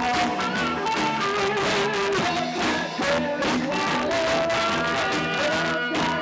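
Upbeat dance music with a steady beat and a melody line over it.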